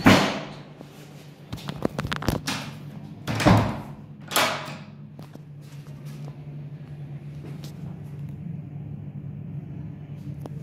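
Toilet door banging shut, then a run of clicks and two brief rushing scrapes, over a steady low hum.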